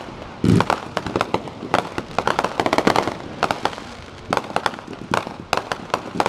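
Fireworks display: a deep boom of a bursting aerial shell about half a second in, then clusters of rapid crackling pops from crackle-effect shells through the rest.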